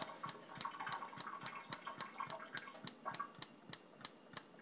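Brita water-filter jug's lid flap clicking open and shut rapidly and evenly, about five times a second, while the jug is being filled.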